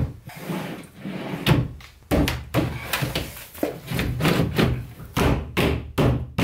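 Wooden wardrobe drawer being worked in and out on metal ball-bearing slide rails, giving a rapid series of knocks, clacks and rattles of the rails and the drawer box, a few a second.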